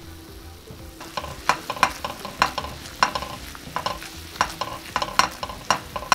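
A plastic spoon stirring a garlic and cream sauce in a stainless steel frying pan, knocking and scraping against the metal in irregular strokes, about two a second, from about a second in. Underneath, the sauce sizzles steadily as it reduces over lowered heat.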